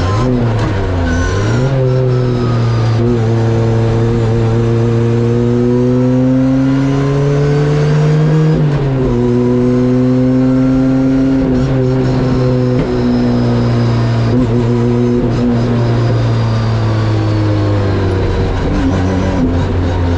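Ford Escort RS Cosworth's turbocharged four-cylinder engine pulling hard under load. Its pitch climbs slowly for about eight seconds, drops sharply at a gear change, then climbs again.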